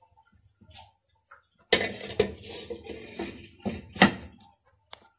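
Glass pot lid with a metal rim clattering and clinking as it is set onto a nonstick pan of simmering custard to cover it. There is a sharp knock about two seconds in, rattling after it, another sharp knock about four seconds in, and a small click near the end.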